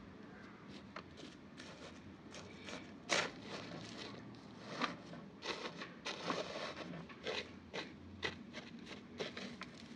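Scattered light clicks, scrapes and crackles of small things being handled, irregular, a few a second, over a faint steady hum.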